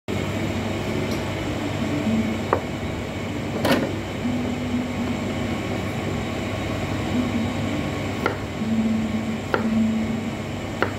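A few sharp knocks on a bar counter, the later ones a large kitchen knife cutting through limes against it, over a steady low machine hum.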